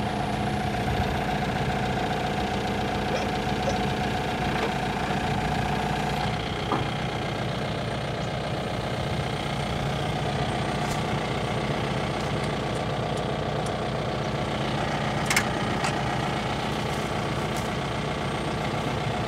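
Manitou telehandler's diesel engine idling steadily, with a few faint clicks and knocks.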